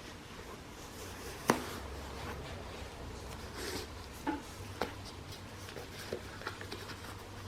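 Light handling noises: a sharp click about one and a half seconds in, then a few softer clicks and taps, over a low steady hum.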